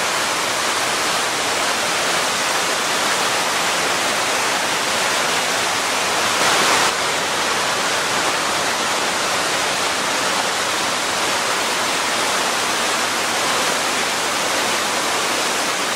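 Steady, even rush of the Genesee River's flowing water, swelling briefly about halfway through.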